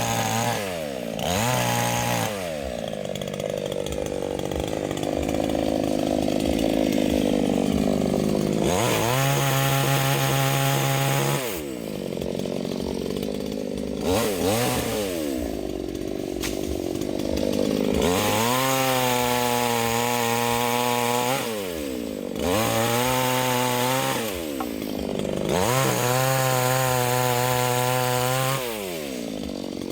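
Chainsaw cutting wood. Its engine pitch sags and wavers under load early on, then it revs up to a high steady pitch and drops back to idle about three times.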